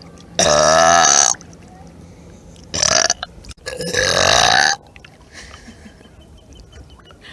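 Three loud burps: a long one about half a second in, a short one near three seconds, and another long one right after it.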